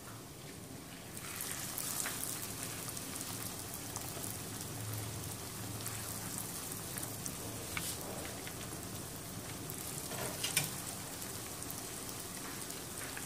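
Panko-breaded pork loin slices sizzling in hot cooking oil in a frying pan, a steady hiss full of small crackles. The sizzle gets louder about a second in, and a sharper pop stands out about ten seconds in.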